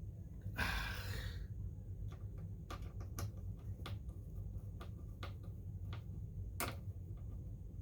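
Small screwdriver turning a screw down into a motherboard's M.2 heatsink: a brief scrape about a second in, then a run of light, irregular clicks, over a low steady hum.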